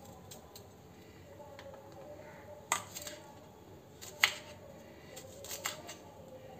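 Kitchen knife slicing ivy gourd on a wooden chopping board: a few scattered sharp taps of the blade striking the board, starting nearly three seconds in, the loudest about four seconds in.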